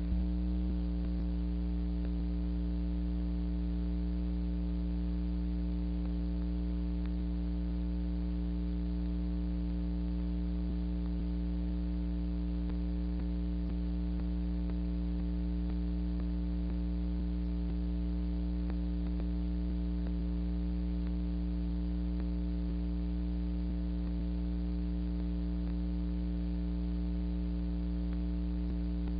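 Steady electrical mains hum with a stack of overtones, left on the audio track of an archival film transfer once the newsreel soundtrack has ended.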